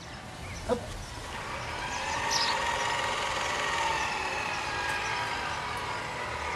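A small motor running steadily with a faint wavering whine, building up about a second in, with a short sharp sound just before.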